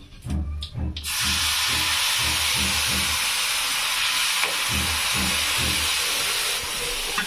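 Water ladled into a pan of hot oil and ground spices, bursting into a loud, steady sizzle and steam hiss that starts suddenly about a second in and eases slightly near the end.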